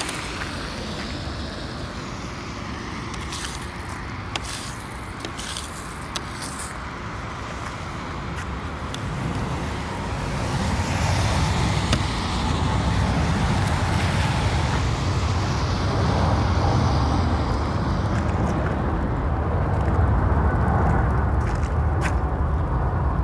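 Steady outdoor traffic noise, with a few sharp ticks in the first seconds and a louder low rumble from about ten seconds in.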